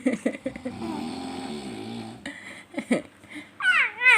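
A man snoring: one long snore through the first half. Near the end, a baby's loud high squealing coo that falls in pitch.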